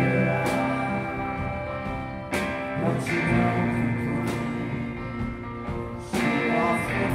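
Live rock band playing an instrumental passage: electric guitar chords ringing out over drums, with fresh chords struck about two seconds and six seconds in.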